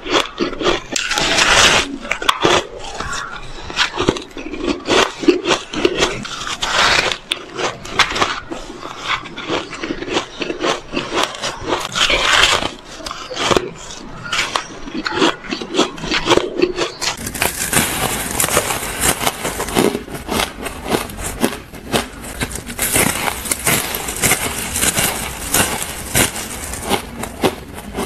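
Close-up crunching and chewing of fluffy, dry shaved ice, bite after bite. About halfway through, the crunching turns brighter and hissier.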